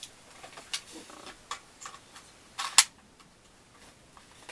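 Scattered light clicks and knocks of hard objects being handled, with one louder clack nearly three seconds in.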